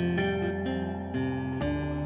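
Background music: soft plucked-string notes, harp-like, picked out in a steady pattern over a held bass note.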